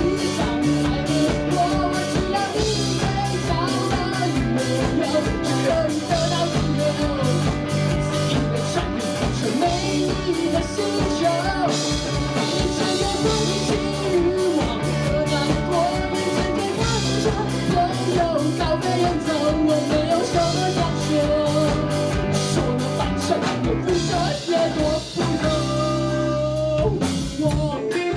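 Rock band playing live: a lead vocalist singing over electric guitar, bass guitar and a drum kit keeping a steady beat.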